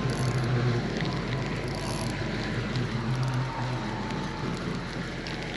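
Spinning fishing reel being cranked to retrieve line: a steady low whirr under an even crackling hiss.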